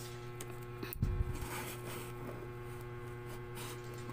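Cardboard shipping box being handled: a soft low thump about a second in, then light rustling and faint clicks, over a steady low hum.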